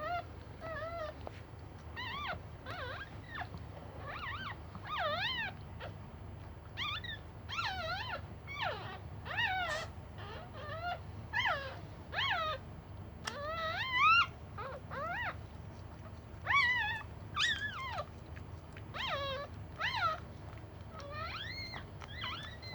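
Dog whining: short, high, squeaky cries that rise and fall in pitch, repeated about every second.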